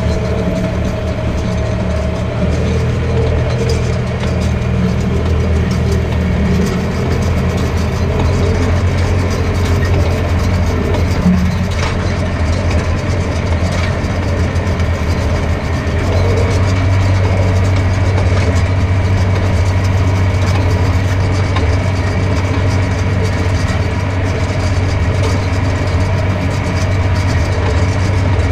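Tractor engine running steadily under work, a continuous low hum whose note shifts slightly about halfway through.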